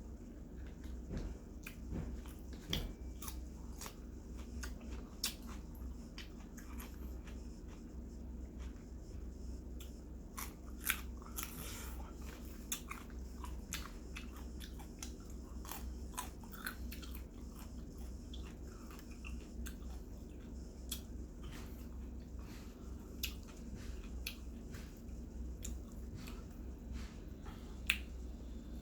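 A person chewing and biting into roasted chicken close to the microphone: irregular sharp clicks and crunches, over a steady low hum.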